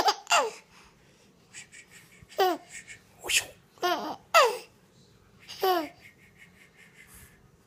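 A baby boy laughing in short, high-pitched bursts, each falling in pitch, about seven of them with pauses between.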